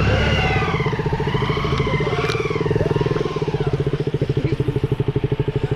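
Motorcycle engine running at a steady low speed with an even, rapid beat.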